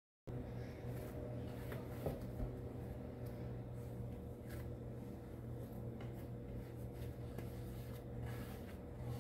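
Faint soft pats, presses and a few light knocks of hands kneading and shaping bread dough into a ball on a wooden cutting board, over a steady low hum.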